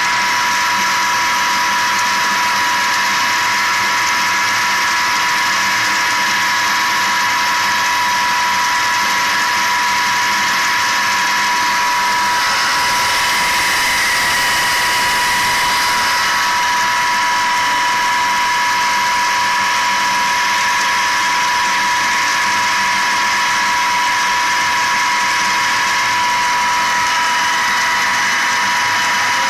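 An 18.5 kW Tesla-type disc sand pump with five discs at 20 mm gaps running steadily with a constant high whine, its discharge jet splashing into a barrel. A brighter hiss swells for a few seconds midway.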